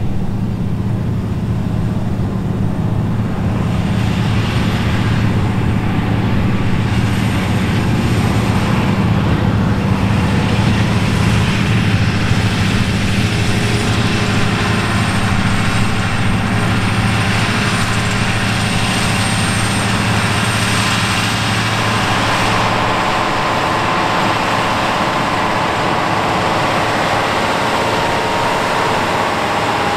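Case IH Quadtrac 540's diesel engine pulling hard under load as the tracked tractor drags a deep subsoiler and disc harrow through the soil, with a steady low drone. About two-thirds through the low drone fades and a higher steady tone takes over.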